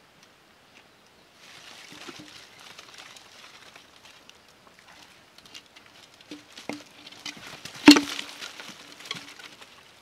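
Rustling and scraping on dry leaves and dirt as a person climbs out of an underground hole and handles its cover, with one loud thump about eight seconds in.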